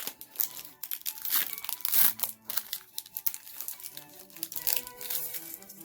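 A foil Pokémon booster pack wrapper crinkling and tearing as it is opened by hand. Background music comes in about four seconds in.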